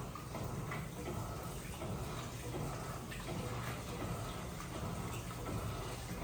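Electrolux LPE16 washing machine running mid-cycle: a steady low motor hum under water sloshing and swishing in the drum.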